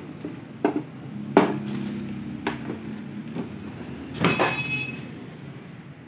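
Knocks and clicks from handling an infrared cooker and its coiled power cord, with a louder clatter and a short squeak about four seconds in as the cooker is lifted, over a steady low hum.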